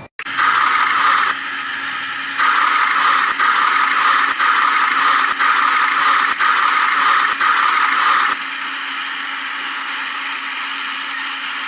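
A small motor whirring steadily with a low hum, louder in two stretches that end about eight seconds in, with a faint knock about once a second during the loud part.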